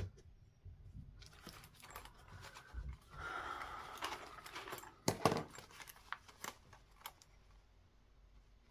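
Paper and craft supplies being handled on a table: rustling, with scattered light clicks and taps, the sharpest about five seconds in.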